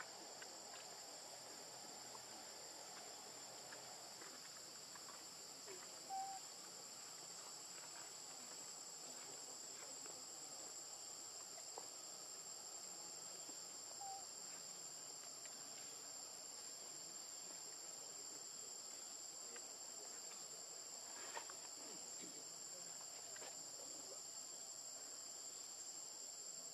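Steady high-pitched chorus of insects droning without a break, with two brief, faint chirps about six and fourteen seconds in.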